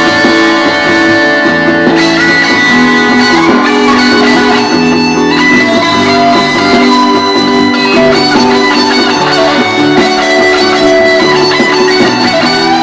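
Fender American Standard Stratocaster HSS electric guitar played with long sustained notes, shifting pitch every second or two.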